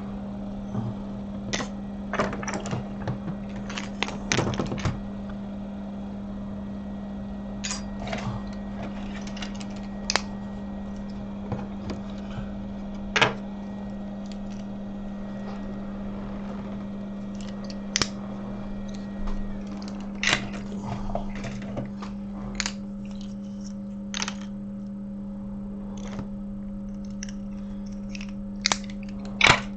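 Irregular clicks, taps and knocks of small tools and parts being handled on a repair bench, over a steady low electrical hum.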